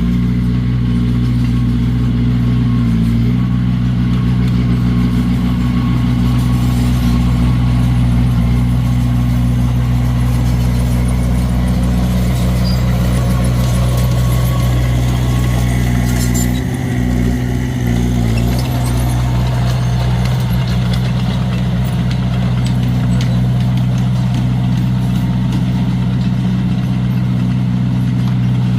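Komatsu D21A crawler bulldozer's diesel engine running steadily, with a brief dip in the engine note a little past the middle.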